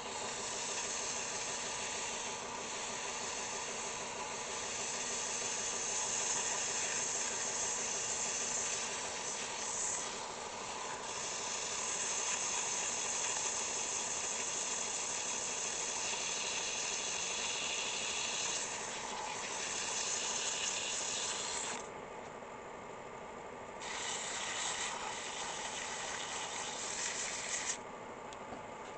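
Coarse sandpaper hissing against a metal table-saw part that a power tool is spinning, with the tool's motor running steadily underneath. The sanding lifts off for about two seconds some two-thirds of the way through and again briefly near the end, leaving only the motor.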